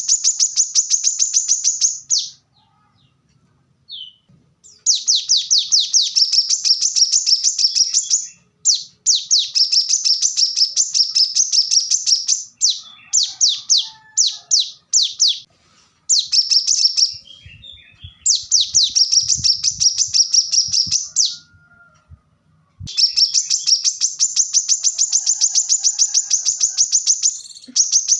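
Brown-throated sunbird (kolibri kelapa) singing: long trills of rapid, high-pitched repeated notes, delivered in bouts of a few seconds with short pauses between.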